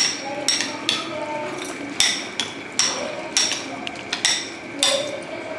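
A metal spoon stirring chicken pieces in marinade in a glass bowl, clinking against the glass about eight times at irregular intervals of half a second to a second.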